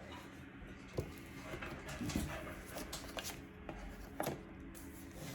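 Faint handling noises from a thin laptop being lifted and handled: a few light knocks spaced about a second apart, with soft rubbing between them.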